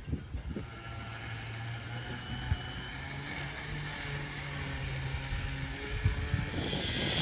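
An engine droning, slowly growing louder and rising slightly in pitch, with wind buffeting the microphone.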